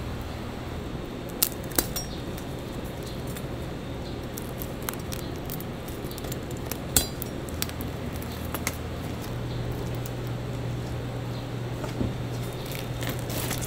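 Chef's knife cutting through crispy-skinned roast pork porchetta, with a few sharp clicks of the blade striking a plastic cutting board, the loudest about seven seconds in. A steady low hum runs underneath.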